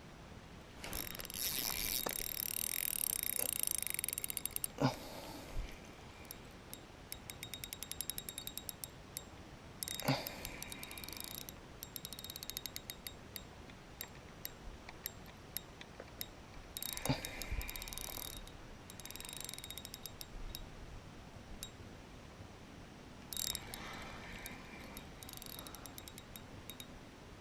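Fishing reel at work: line hissing off the spool on a cast, a sharp click as the reel engages, then the reel ticking rapidly as it is cranked in. The cycle of casting and retrieving repeats.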